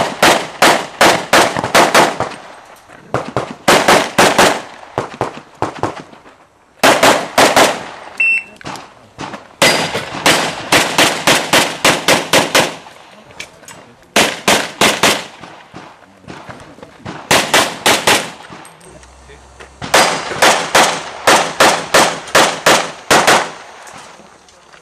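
Rapid strings of pistol shots in a practical-shooting course of fire, about four or five shots a second, broken by short pauses between strings.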